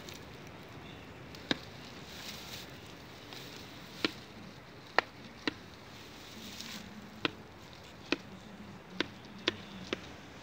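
Tortoise shells knocking together: about nine sharp, hard clicks at irregular intervals as one tortoise pushes against the back of the other's shell.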